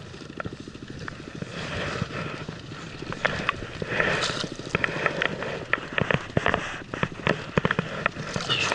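Baitcasting reel being cranked to bring in a hooked trout: a fast, even ticking, joined from about three seconds in by sharper, louder clicks and knocks as the fish is brought to the boat and netted.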